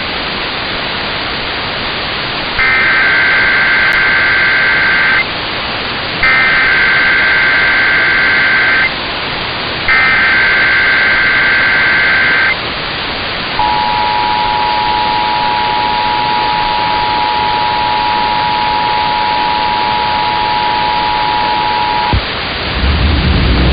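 Emergency Alert System broadcast test over steady radio hiss: three bursts of the SAME digital header, a harsh warbling data screech about two and a half seconds each with short gaps between them. Then the EAS two-tone attention signal, two steady pitches sounding together and held for about eight and a half seconds before cutting off.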